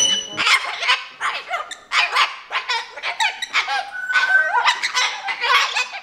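Umbrella cockatoo calling loudly in a rapid series of short harsh calls with its crest raised. It is an excited tantrum call, which the owner likens to a flock call.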